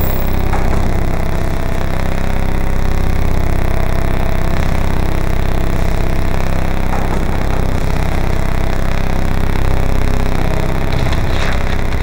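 Heavy, dirty machine sound effect: a loud, dense, steady rumble, strongest in the low end, with a rattling, grinding texture and a few short clicks near the end.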